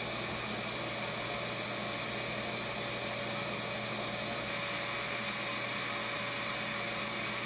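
Vacuum cleaner running steadily: a constant motor whine over an even rushing hiss of air.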